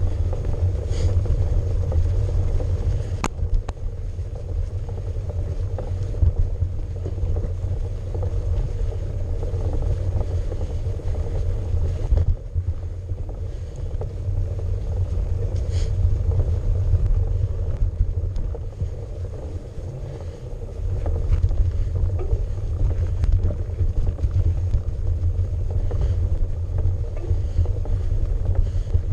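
Mountain bike riding over a snow-covered trail, heard as a steady low rumble of tyre and wind noise on an action camera. A couple of sharp knocks from the bike or trail cut through, one about three seconds in and another about twelve seconds in.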